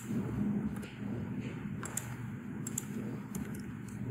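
Computer keyboard keys clicking irregularly as code is typed, over a steady low hum.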